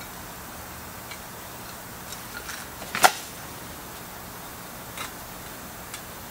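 Granular bonsai soil crunching and clicking as gloved hands press it down into a small ceramic pot, with one sharp click about three seconds in and a few lighter ones, over a steady background hiss.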